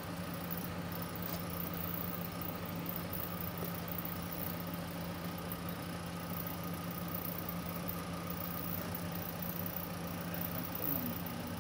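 A steady low mechanical hum, even in level throughout.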